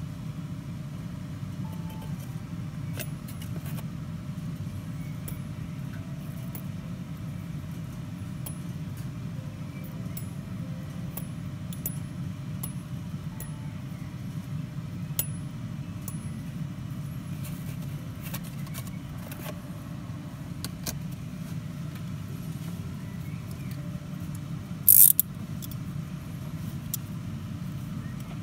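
Light metallic clicks and ticks of a small phosphor-bronze cloisonné bookmark clip being handled and fitted on its paper backing card, with one louder, brief noise near the end. A steady low hum runs underneath.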